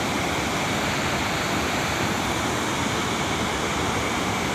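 Steady rushing of a flash-flood torrent after a cloudburst, muddy water carrying rocks and debris down a mountain gully.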